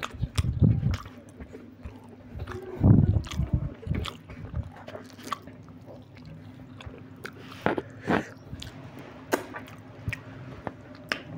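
A person eating egg biryani by hand: close, wet chewing and lip smacks, mixed with sharp clicks and light scrapes of fingers on a steel plate. Two louder chewing bursts come about half a second and three seconds in.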